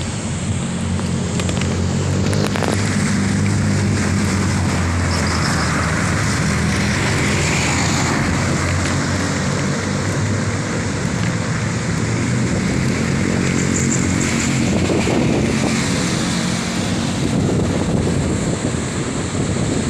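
City road traffic, with car and motorcycle engines running close by, heard from a moving bicycle with wind rushing over the microphone. The sound is steady, with a low engine hum that comes and goes.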